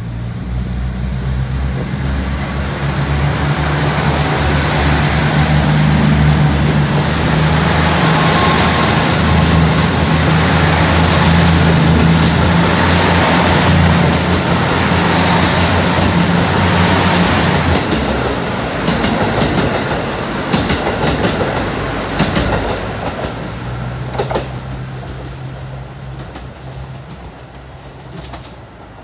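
Limited Express Hida diesel multiple unit pulling out of a station and passing close by: its diesel engines drone under load, growing louder over the first several seconds. About two-thirds of the way through, the wheels click over the rail joints as the last cars go by, and the sound fades as the train draws away.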